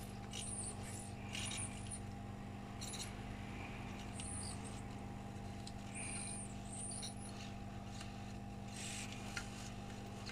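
Steady low electrical hum with short, soft hisses coming and going every second or few, as two soldering irons heat a component on a laptop mainboard and the flux sizzles under the tips.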